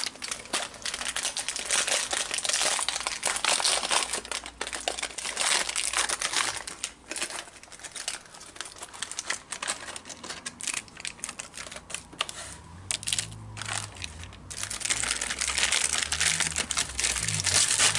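Foil ration biscuit pack crinkling and crackling as it is handled and opened. The crackling thins out about halfway through, then picks up again near the end.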